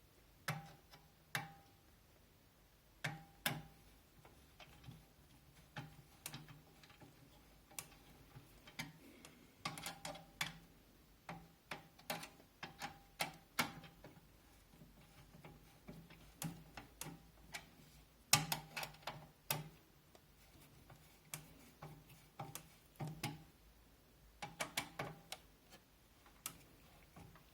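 Irregular sharp clicks and ticks, some in quick runs, some with a short ring: screws being started into case-fan mounting holes in a computer case, left loose for tightening later.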